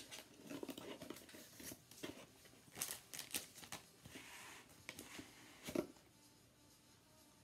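Faint rustling and crinkling of packaging being handled and opened to get at gel polish bottles, with a few sharp clicks about three seconds in and again near six seconds.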